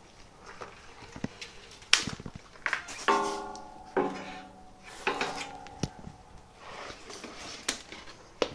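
Metal 3D printer parts being handled and set down: a string of knocks and clanks, two of which ring on for about a second like struck metal.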